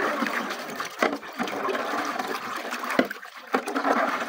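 Hands churning and sloshing thick borhani, a spiced sour-yogurt drink, in a large aluminium pot, with a few sharp splashes about a second in and again after three seconds. The batch is being mixed by hand.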